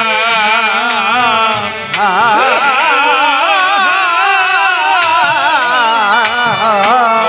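Kobigaan devotional folk music: a melody with heavy vibrato over a steady held drone, with a brief break about two seconds in.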